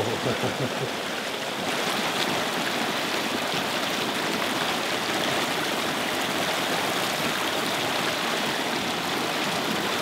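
Water rushing down a chute into a round stone basin and churning steadily in a whirlpool, a natural washing machine. The rush gets a little louder a couple of seconds in.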